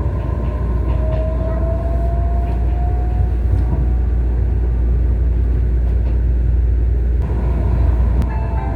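Train running along the track, a steady heavy low rumble with a faint rising whine in the first few seconds. A short chime melody begins near the end.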